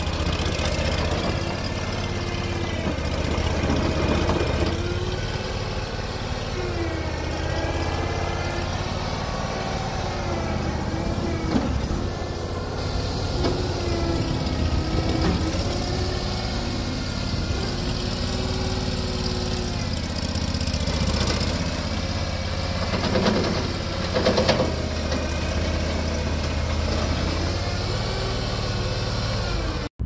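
Ramrod 1350 mini skid steer's 35 hp gas engine running, its pitch rising and dipping as the tracked loader drives and raises its bucket. A few clunks come through about a third of the way in and again near the end.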